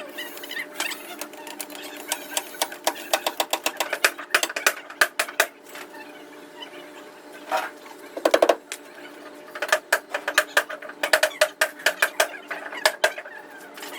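Rapid runs of light, sharp hammer taps on car body sheet metal, several a second, stopping briefly near the middle, with a short pitched sound about eight seconds in.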